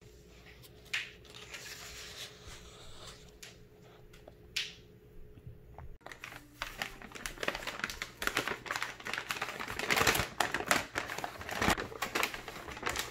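Soft rustling of paperback book pages being handled and turned. About six seconds in, this gives way to a brown paper takeout bag crinkling as it is opened. Plastic food containers click and rattle as they are lifted out and set down on a wooden counter.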